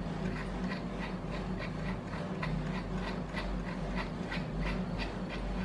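Small drill chuck on a mini lathe being twisted open by hand, its jaws and sleeve giving a steady run of light mechanical clicks, about four a second, over a low steady hum.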